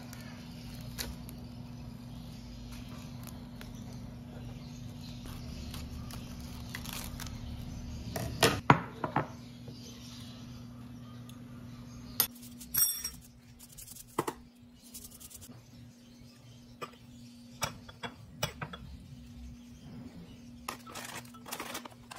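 Salad being made by hand: scattered clinks and taps of glass bowls and utensils over a steady low hum, with a run of sharper clicks about eight seconds in and again around twelve seconds.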